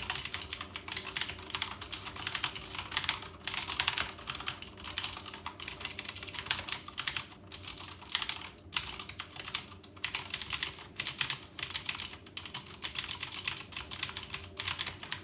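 HyperX Alloy FPS Pro mechanical keyboard with clicky Cherry MX Blue switches being typed on fast and continuously, a dense patter of sharp key clicks with a few brief pauses around the middle.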